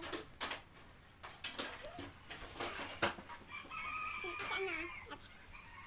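A rooster crowing once, one long drawn-out call beginning about three and a half seconds in, over scattered light clicks and knocks.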